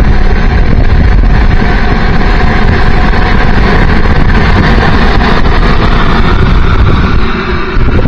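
Twin JetCat 120 model jet turbines of an RC F-15 running at a ground test run, loud and steady with whining tones over the jet noise; briefly quieter near the end.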